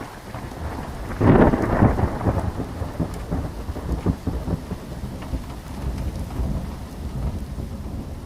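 Thunderstorm sound effect: steady rain with low thunder rumbling, a loud thunder peak about a second in, then rolling on.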